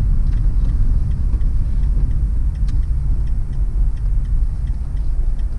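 Campervan engine and road rumble heard from inside the cab as it drives slowly, with faint ticks repeating at a steady rate.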